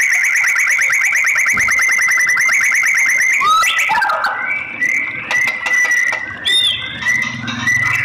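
White-rumped shama singing: a fast, even trill for about three seconds, then a string of short rising whistled notes.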